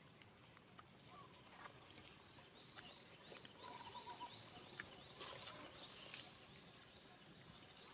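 Near silence: quiet outdoor ambience with a few faint, short, high chirps and soft clicks through the middle.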